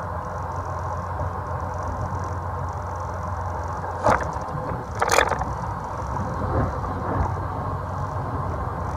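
Bayliner Capri 2052 cuddy boat's engine running steadily at slow speed, a low hum with a mid-pitched drone over it. Two brief sharp noises cut through it about four and five seconds in.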